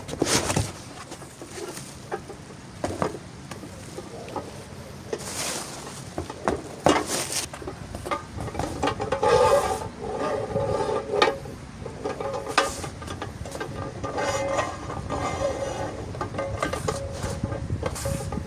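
Packing foam and cardboard rustling and scraping, with knocks and clicks as the white stand legs are handled. About halfway through, a steady pitched hum joins in.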